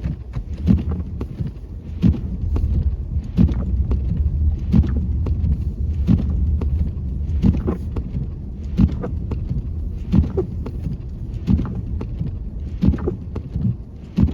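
Low, steady rumble of a car inside its cabin, with a short knock repeating evenly about every second and a third.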